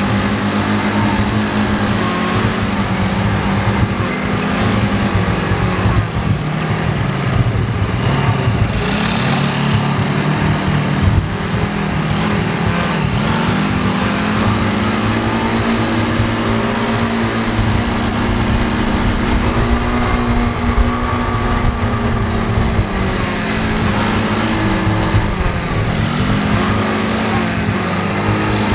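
Quad bike (ATV) engine running while riding on a dirt track, its pitch rising and falling as the throttle is opened and eased off.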